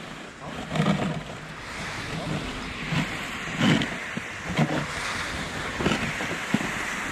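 Wind rushing and buffeting the microphone, with several dull low thumps.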